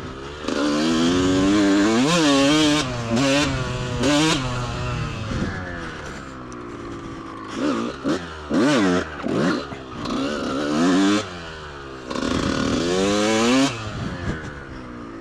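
Two-stroke engine of a 2003 Kawasaki KX125 motocross bike revving up and dropping back over and over as it is ridden, its pitch climbing and falling with each burst of throttle.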